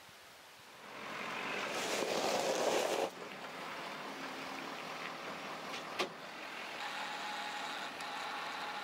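A pickup truck running, heard as broad vehicle noise. The sound is loudest in the first few seconds and cuts off abruptly about three seconds in, then settles into a steadier running sound with a single sharp click about six seconds in.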